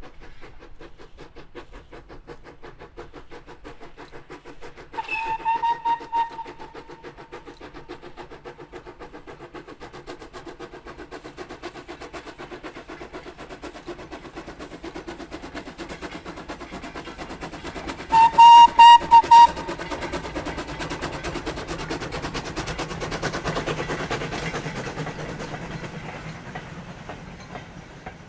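Lancashire & Yorkshire Railway Class 21 'Pug' 0-4-0 saddle tank steam locomotive working past with a short goods train, its exhaust beating in a fast, even rhythm. A steam whistle gives one blast about five seconds in and four short toots around eighteen seconds. The wagons then rumble and clank past, fading near the end.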